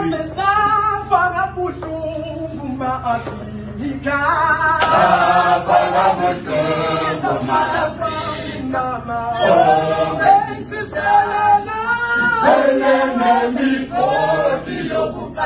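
Male choir singing a cappella; the singing gets louder about four seconds in.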